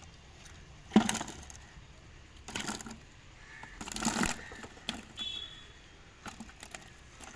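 Pearlspot fish tossed by hand into a plastic bucket onto the catch: a sharp wet slap about a second in, then two longer wet rustling bursts as more fish land and shift in the bucket.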